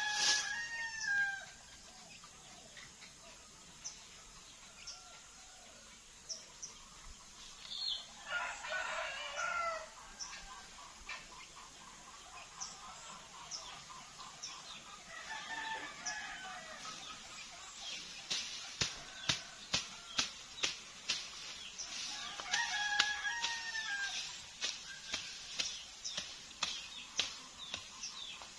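A rooster crowing four times: at the start, then about 8, 15 and 22 seconds in. From about 18 seconds there is a run of quick sharp strokes, two or three a second, as a bolo knife slashes through cogon grass.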